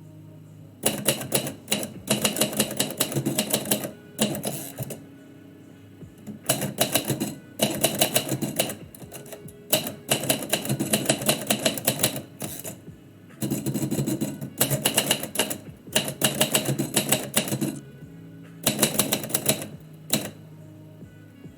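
Typewriter being typed in quick runs of keystrokes lasting a second or two each, broken by short pauses, as a poem is written.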